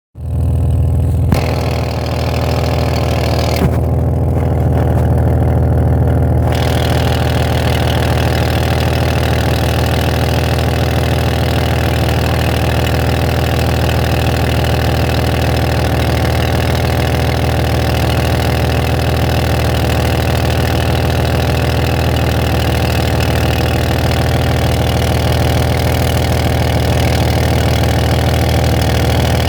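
Van engine idling steadily. A hiss, typical of exhaust escaping from a leaking catalytic converter, joins in about six seconds in and carries on, with two brief knocks before it.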